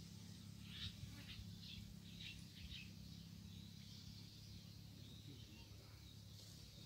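Faint outdoor quiet with a few short, high bird chirps in the first three seconds over a low steady hum.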